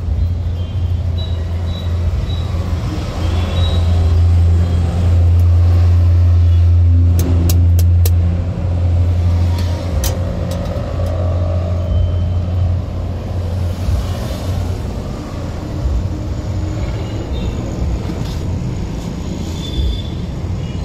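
A steady low rumble, loudest between about four and eight seconds in, with a few sharp clicks around seven to eight seconds and again at ten seconds.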